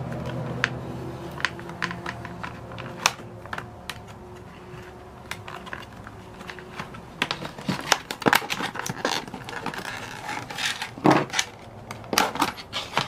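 Stiff clear plastic blister pack being cut along its edge and pried open by hand: scattered sharp clicks and crackles of the plastic, growing louder and more frequent in the second half.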